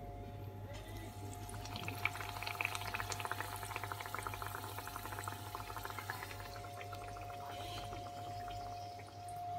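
A besan-battered potato chop frying in hot oil, sizzling and crackling. The crackle starts about a second in, is busiest in the middle and thins toward the end, over a steady hum.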